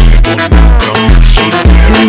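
Loud music with a heavy, booming bass beat, about two beats a second.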